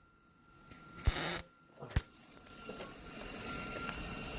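Millermatic MIG welder arc crackling in one short burst of about half a second, about a second in, laying weld onto the broken exhaust manifold bolt stub to build up a bead. A sharp click follows near the two-second mark, then a faint hiss grows.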